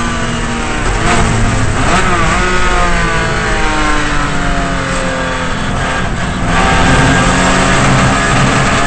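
Datsun 240Z race car's straight-six engine heard from inside the cockpit. Its pitch swings quickly about one to two seconds in, then falls slowly through a corner. About two thirds of the way through it gets louder and rises steadily in pitch as the car accelerates hard.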